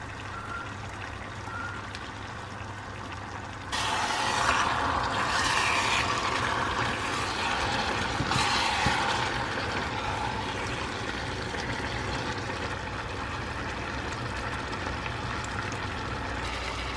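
Chicken stock poured into a hot frying pan of chicken pieces and spices. About four seconds in, a loud sizzling and bubbling sets in, with a spatula stirring through it, and slowly dies down as the liquid settles to a simmer.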